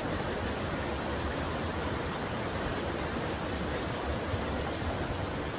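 Muddy floodwater rushing and churning past a concrete edge, a steady even rushing noise with no break.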